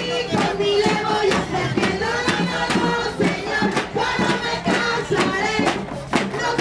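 Music with a group of voices singing over a steady percussive beat.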